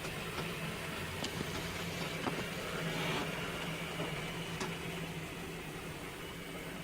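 Scale-model Conrail SD40 diesel locomotive running slowly through the yard turnouts: a steady low hum with a few faint clicks of the wheels over the point work.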